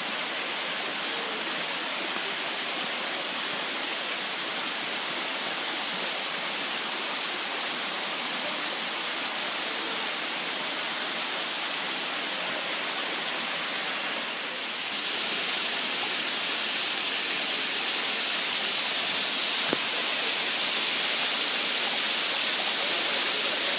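Steady rush of a large waterfall, Kaaterskill Falls, plunging into its pool; about fifteen seconds in it becomes slightly louder and brighter.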